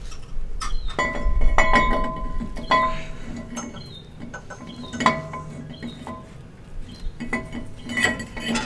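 New drilled-and-slotted brake rotor clinking and ringing against the wheel hub and studs as it is fitted onto a Jeep Wrangler's front hub. A string of sharp metal-on-metal clinks with short rings, bunched about a second in, once near the middle and again near the end.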